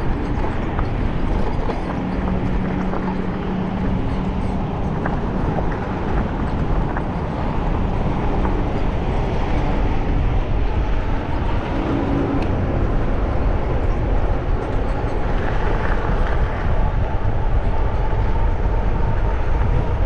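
Steady wind rush and rolling rumble from riding a bicycle along a paved trail, with faint hums from passing traffic rising and fading at times.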